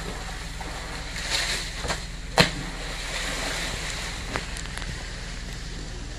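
A proboscis monkey's body hitting the river water in one sharp splash about two and a half seconds in, over a steady rush of lapping water and wind on the microphone; a smaller knock follows near the end.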